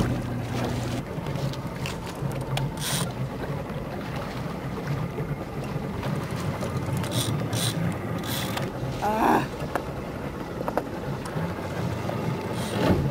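Boat motor idling with a steady low hum, wind buffeting the microphone, and a few light knocks. A short voice-like sound comes about nine seconds in.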